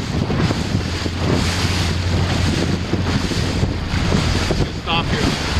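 Wind buffeting the microphone over the rush and slap of choppy waves, with a steady low hum underneath and a brief warbling tone about five seconds in.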